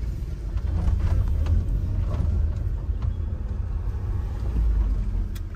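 Steady low rumble of a car cabin while driving slowly: engine and tyre noise heard from inside the car.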